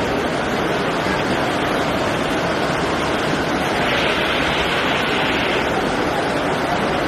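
Strong wind blowing, a steady loud rushing noise that grows hissier for a second or two about four seconds in.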